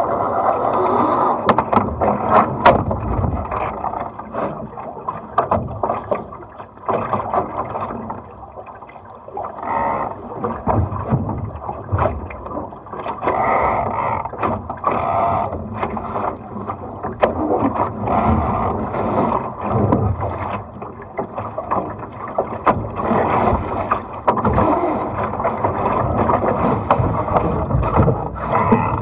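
Water rushing and splashing along a small sailing dinghy's hull as it sails, rising and falling with the waves, mixed with wind noise on the microphone and scattered short knocks and clicks.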